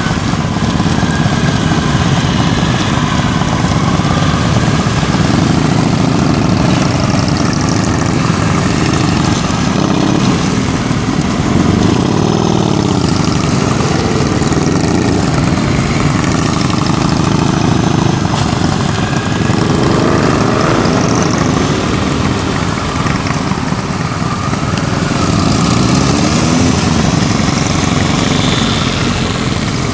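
Several motorcycle engines running at low speed, their notes rising and falling as the bikes accelerate, turn and pass, twice most clearly about twelve and twenty seconds in.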